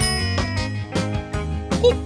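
Upbeat background music with a bass line and a steady beat. A bright, ringing ding sounds right at the start.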